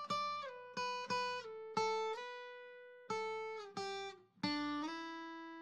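Background music: a guitar picking a slow melody of single plucked notes, the last one left ringing near the end.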